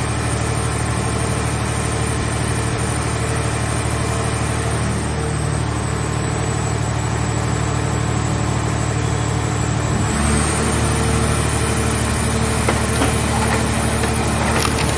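Hydraulic scrap-car baler's power unit running steadily with a high whine; about ten seconds in its tone shifts as the load changes, and scattered crackles come in near the end.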